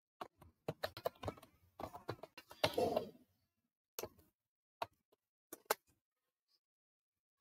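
Typing on a computer keyboard: a quick run of keystrokes over the first three seconds, then a few single key taps spaced out after that.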